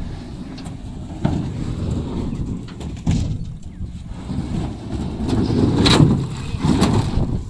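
A boat under way: a steady low rumble with a few sharp knocks, the loudest about six seconds in.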